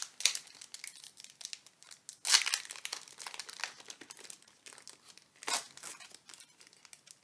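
Foil wrapper of a Pokémon Shining Fates booster pack crinkling and crackling as it is handled and torn open by hand, with the loudest sharp crackles about two seconds in and again about five and a half seconds in.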